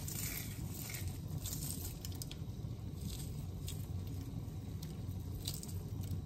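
Crisp cooked bacon being crumbled by hand and dropped into a skillet of cream sauce: scattered faint crackles and light pattering over a steady low hum.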